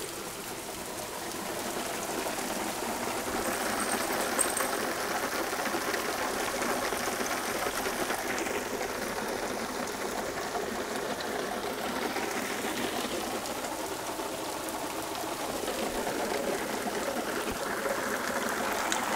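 Heavy rain in a sudden downpour: a steady hiss of rain pouring down, growing a little louder about two seconds in.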